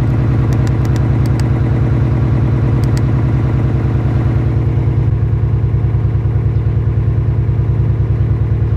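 2003 Subaru WRX's turbocharged 2.0-litre flat-four idling with a steady pulsing beat, the engine shaking: a misfire, which the car's scanner reports as cylinder 2 misfiring after new coil packs were fitted.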